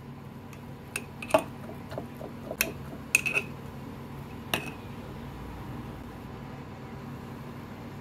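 A spoon stirring a thick mixture of sliced onions and honey in a glass jar, clinking against the glass about six times in the first half, with a short ring after some of the clinks.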